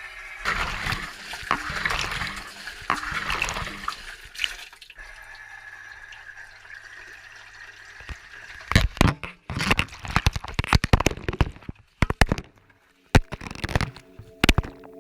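Water running and splashing for a few seconds, then a steady machine hum, then a run of loud, irregular knocks and clatters over the second half.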